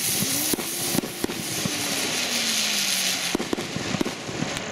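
Ground bloom flower spinner firework spinning on the ground and spraying sparks with a steady loud hiss, sharp crackling pops scattered through it. A faint low tone slowly falls in pitch over a few seconds.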